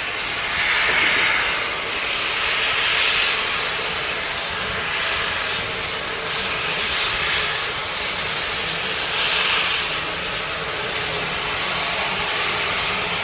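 Steam locomotive hissing steam, a steady hiss that swells in surges every two seconds or so.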